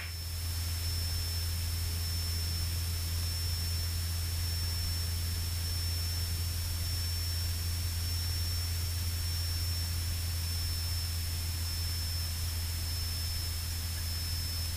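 Steady low drone of a Cessna 172 in cruise flight, heard inside the cabin, with an even hiss over it and a thin, constant high whine.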